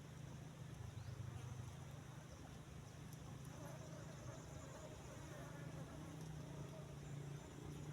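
Faint steady low buzz of a flying insect.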